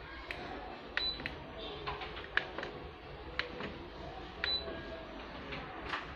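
Keys on a Canon imageRUNNER copier's control panel being pressed one at a time, a sharp click with each press, with a short high beep from the panel twice as the service-mode code is entered.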